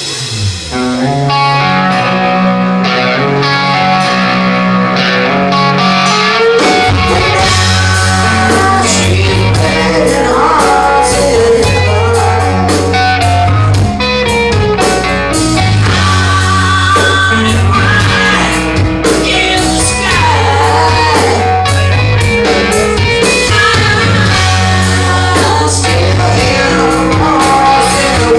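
Live hard rock band playing: electric guitar chords at first, with bass and drums coming in about six or seven seconds in and the full band carrying on.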